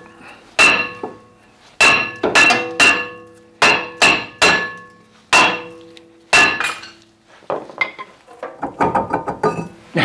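Sledgehammer blows on a rusted-on cast-iron brake disc of a VW Bus, beating it over the hub face; each strike rings like a struck bell. About nine heavy, irregular blows come in the first seven seconds, then lighter, quicker knocks and clatter as the rotor comes free of the hub.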